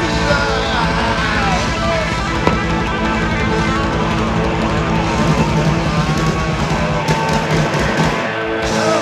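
Live rock band playing loudly: electric guitar and bass held over fast, rapid-fire drumming.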